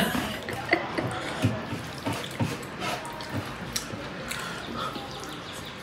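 Close-up eating sounds of people eating rice by hand from steel plates: soft, irregular wet clicks and smacks, several a second, from chewing and from fingers working the food.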